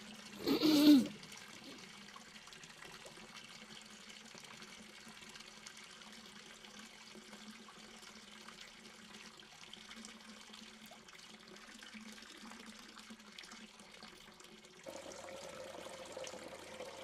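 A thin stream of water pouring from a small toy bucket into a steel cup, starting near the end. Before it, a faint steady hum.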